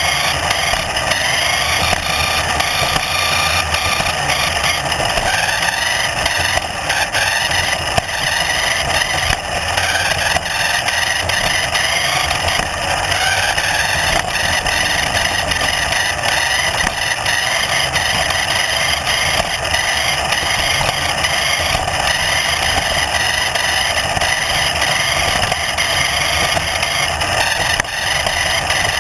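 A vehicle's motor running steadily for the whole stretch, its pitch slowly drifting up and down.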